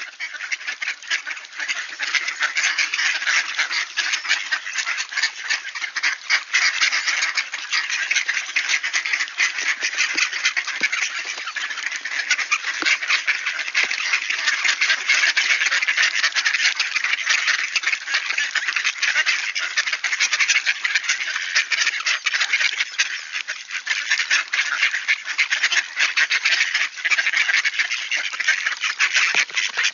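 A flock of mallards quacking and chattering without pause, over a dense, fast clicking.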